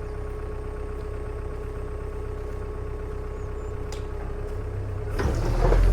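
Excavator's diesel engine idling steadily with a steady whine over it; about five seconds in, the machine gets louder and rougher as it picks up.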